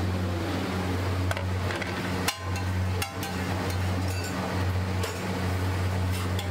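A steady low machine hum at a street-food griddle, with several sharp clinks and knocks of a metal spatula and plate.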